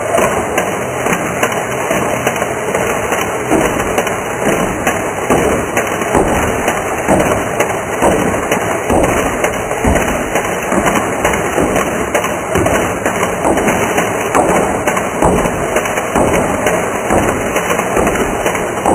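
Modded Air Zone MG-25 toy foam-dart gun firing rapidly, a dense run of clicks and clattering that goes on without a break.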